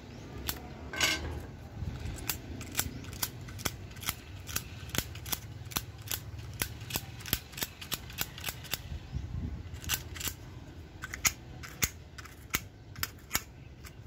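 Fingers picking and flicking at the rusted metal spring contacts and plastic battery compartment of a TV remote control: a long run of sharp, irregular clicks, about two or three a second, over a low rumble.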